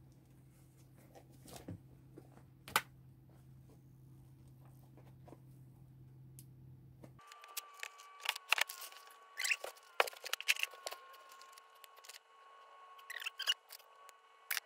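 Clicks, scrapes and rattles of hands working at a melted power-cord plug, pulled at with gloves and pried at with a multitool, over a steady low hum. About seven seconds in, the hum switches abruptly to a steady higher-pitched hum, and the clicking and scraping becomes busier, in two clusters.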